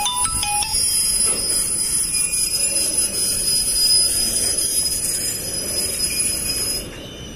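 Railway station public-address chime: a quick run of electronic tones stepping up and then down, the jingle played before an announcement. A steady high-pitched hiss runs under it and stops suddenly near the end.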